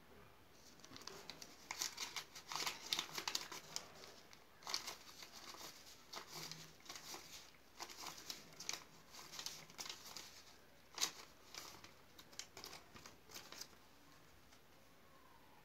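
Paper Pakistani rupee banknotes rustling and crinkling as they are flicked through and counted by hand: many quick, crisp, irregular flicks that stop near the end.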